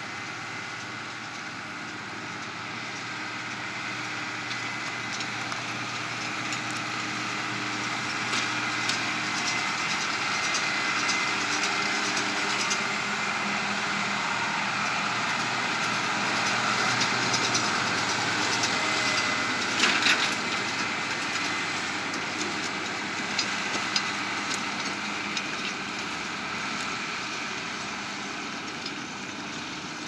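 Massey Ferguson 7618 tractor's six-cylinder diesel engine running under load as it pulls a McHale F5500 round baler through hay, with the baler clattering and clicking. The sound swells to a peak a little past the middle, where a sharp crack is the loudest event, then fades.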